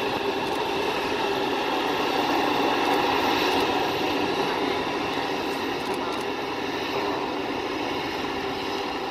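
Krone BIG X 1180 forage harvester with its V12 engine running under load while chopping maize: a steady mechanical drone with several held tones over it.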